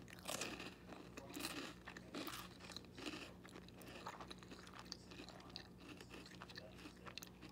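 A person chewing toast topped with hard-boiled egg, with irregular crunches that are strongest in the first three seconds and fainter after.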